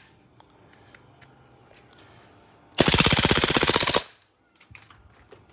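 WE G26 gas blowback airsoft pistol firing one rapid full-auto burst, emptying the magazine in about a second, with a few small clicks of handling before it.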